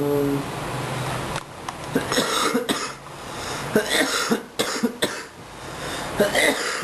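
A man coughing repeatedly in several short fits, starting about two seconds in.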